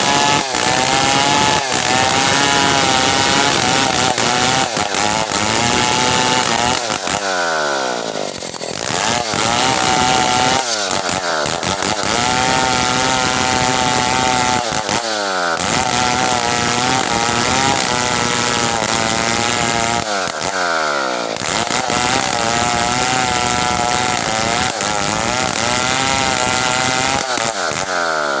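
Stihl 070 two-stroke chainsaw running at high revs, cutting through a merbau log. Its engine note dips sharply and picks up again about five times.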